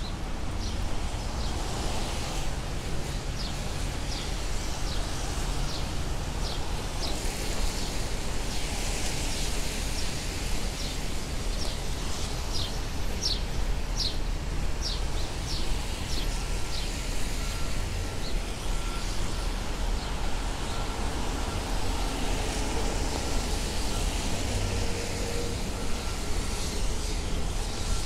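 Rainy city street ambience: a steady rumble and hiss of traffic on wet roads. A run of short, high chirps comes through in the first half, and a faint repeating beep starts just past halfway.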